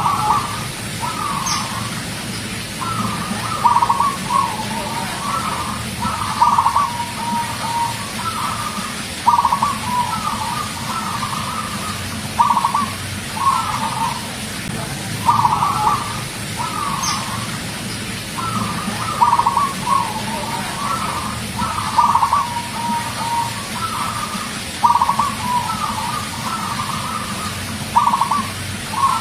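Local zebra dove (perkutut) singing: a repeated cooing phrase of a few quick notes ending in a rolling trill, coming about every three seconds over a steady low hum.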